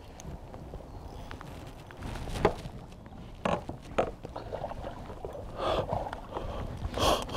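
Sharp knocks and scuffs on a bass boat's deck as the angler kneels down while playing a hooked bass, several between about two and a half and four seconds in, then a couple of short rustling bursts near the end.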